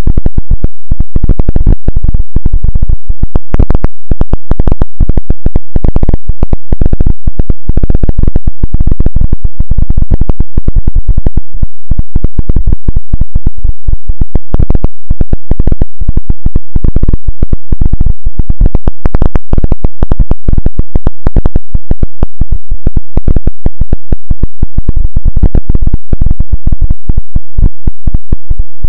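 Harsh, heavily clipped electronic noise: an unbroken stream of rapid, irregular crackles and thuds at full level, heaviest in the bass.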